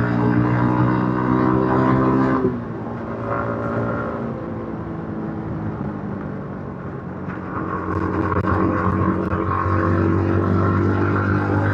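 Yamaha MT-15's 155 cc single-cylinder engine through its stock exhaust, running steadily under throttle, then easing off about two and a half seconds in with the note dropping in pitch. It runs quieter for several seconds, then is opened up again about eight seconds in and holds a steady, louder note.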